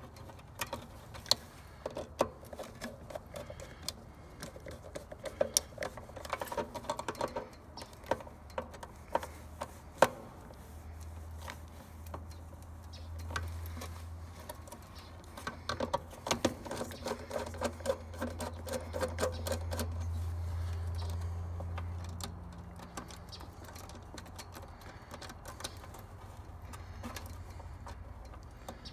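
Hands wiring a heat pump's contactor: irregular small clicks and taps of spade terminals and wires being pushed on and handled. A low hum comes and goes twice in the middle.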